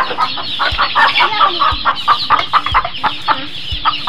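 A flock of young Rhode Island Red chickens clucking and peeping, many short calls overlapping in quick succession, with a soft low thump about once a second underneath.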